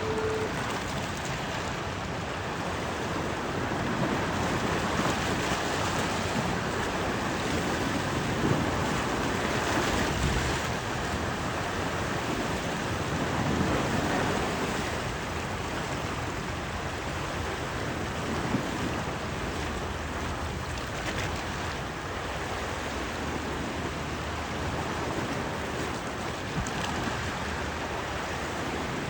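Steady rushing noise of wind and waves at the shore. A single steady tone, like a horn, cuts off about half a second in.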